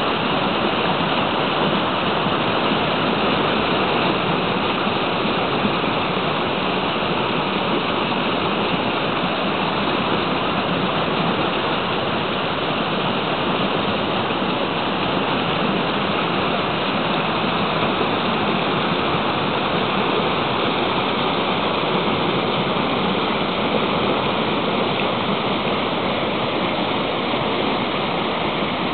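River rapids rushing over and around boulders: a steady, even rush of fast-flowing water.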